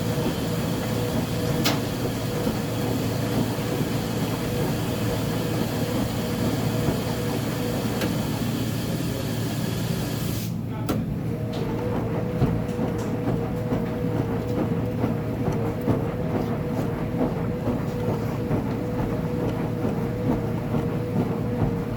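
Uni-Mac UniMat 35 commercial washing machine running a load, a steady rumble with a held hum. About halfway through, a high hiss cuts off abruptly while the hum and rumble carry on.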